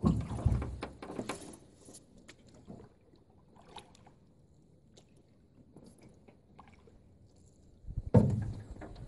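A small boat being paddled on a lake: two loud bouts of paddle splashing and low rumble, one at the start and one near the end, with fainter water sounds between.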